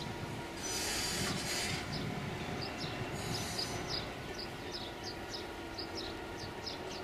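BR 232 'Ludmilla' diesel locomotives, with 16-cylinder Kolomna engines, rolling slowly by with empty timber wagons, engines running with a steady drone. There is a burst of compressed-air hiss about a second in and another about three seconds in, and a string of short high squeaks from midway on.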